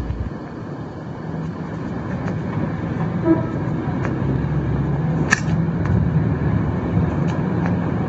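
Steady car engine and road noise that grows somewhat louder, with one sharp click about five seconds in.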